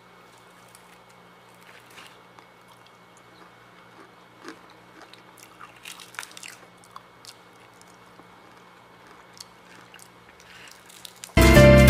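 Crisp crust of freshly fried chicken crackling and crunching in scattered short clicks as pieces are handled and pulled apart by hand, over a faint steady hum. Loud music cuts in abruptly near the end.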